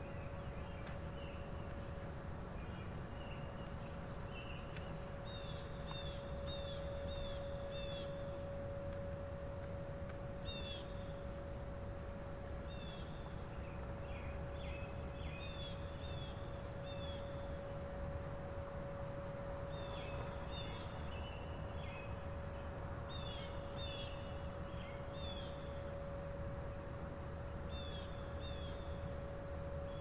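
A distant Whelen outdoor warning siren holding one steady tone, faint and gently swelling and fading, over a steady chorus of crickets and insects. Groups of short falling chirps come and go throughout.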